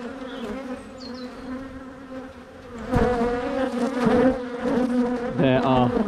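Honeybees buzzing close to the microphone around an opened hive: a steady hum that grows louder about three seconds in as bees fly at the camera. The bees are defensive, stinging the camera.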